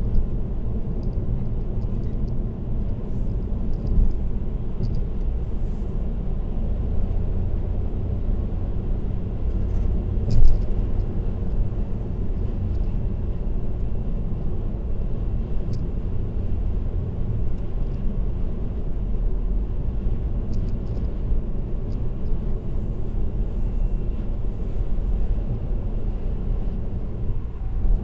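Steady road and tyre noise with a low rumble from a car driving along an expressway, with a brief thump about ten seconds in.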